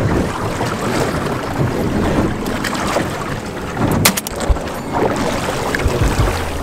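Small boat under way through choppy sea, its motor humming low under the rush of water against the hull and wind on the microphone. A sharp knock about four seconds in.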